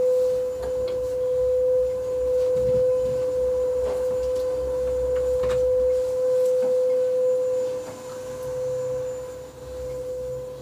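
A steady, unwavering mid-pitched tone, with a few light clicks and rustles over it.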